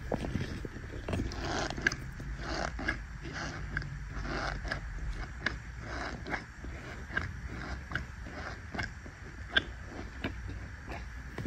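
Powdered Irish Spring soap being pressed and squeezed in a tub, giving a string of soft crunches and short squeaks. There is a sharper squeak about two seconds in and another near the end.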